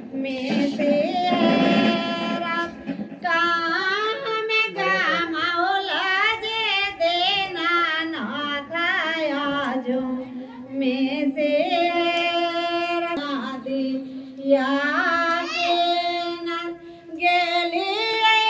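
A woman singing a devotional song in long melodic phrases with held, wavering notes, pausing briefly every few seconds.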